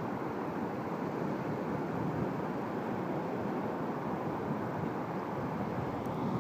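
Steady, even rushing noise of wind and surf, with no distinct events.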